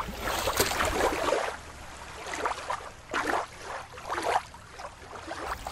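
Water lapping and sloshing, fuller for about the first second, then quieter with a few short surges.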